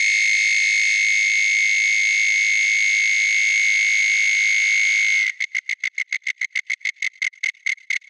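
Synthesized cricket chirp from the Absynth Cricket Chirp Tool patch, layering an FM body, a ring-mod pure tone and a wavetable wing oscillator. It sounds as a continuous high-pitched trill, then a little past five seconds in it breaks into rapid separate chirps, about seven a second.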